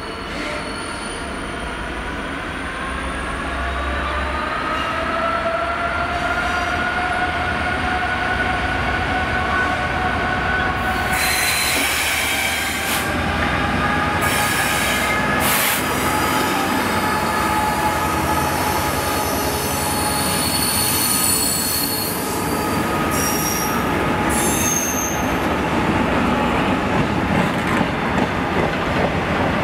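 DB Cargo Class 66 diesel locomotive hauling a freight train of covered wagons slowly past, its wheels squealing in several sustained high tones that rise slightly at first. The locomotive's engine passes about halfway through, and the wagons rumble by after it.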